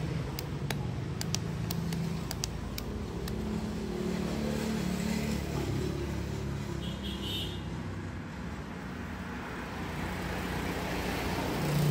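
A cluster of light clicks and taps in the first few seconds as the opened plastic housing of a cordless drill is handled, over a steady low background rumble.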